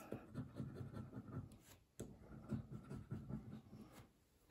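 A coin scratching the silver coating off a paper bingo scratch card: a faint run of short, irregular rasping strokes that stops shortly before the end.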